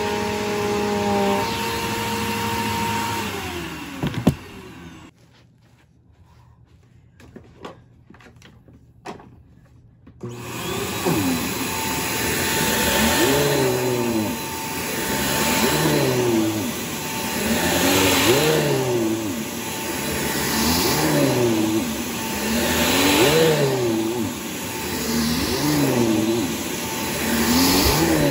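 An upright vacuum cleaner running, then switched off about three seconds in, its whine sliding down, followed by a thump. After a few seconds of quiet with small clicks, a bagless upright vacuum, the Bissell PowerGroom, starts about ten seconds in and runs while pushed back and forth over carpet, its pitch rising and falling every two to three seconds.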